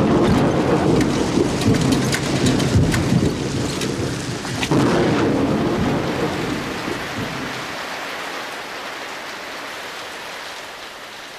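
Thunderstorm with heavy rain: a long roll of thunder, then a second one about five seconds in, over steady rain. The rumble dies away after about seven seconds, leaving only the hiss of rain, which itself grows quieter.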